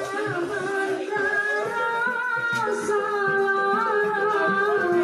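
Singing over an instrumental backing track: a karaoke song done on the Smule singing app.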